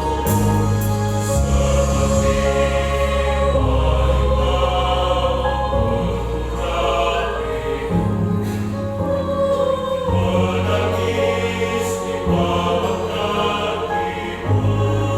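Church choir singing over sustained low accompaniment chords that change every second or two.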